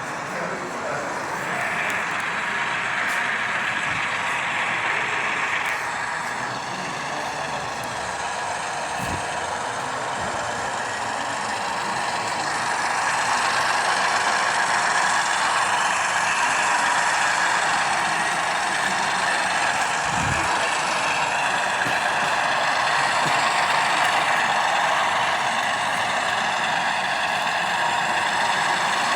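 HO scale model trains running on a layout: small electric motors and gears whirring, with wheels clicking over the track. The sound grows louder about halfway through.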